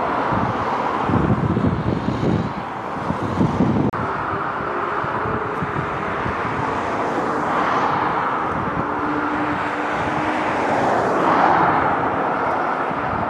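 Jet airliner engines: a Boeing 737 running on the runway with wind buffeting the microphone. After a sudden cut about four seconds in, a twin-engine jet on final approach, its engine noise and steady hum growing louder as it nears.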